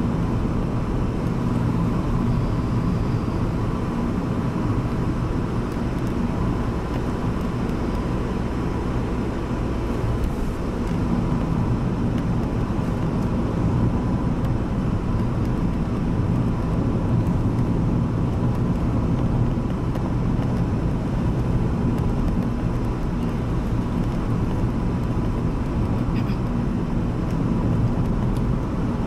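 Steady engine and road noise of a car driving along, heard from inside the car's cabin.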